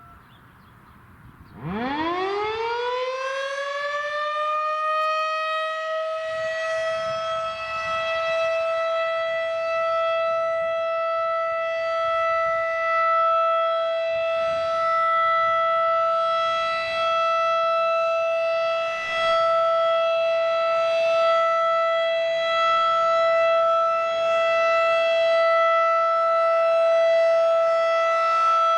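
Federal Signal 2001-DC outdoor warning siren starting up about a second and a half in: its pitch rises over a few seconds, then it holds a steady, loud tone with strong overtones, sounding for a scheduled test.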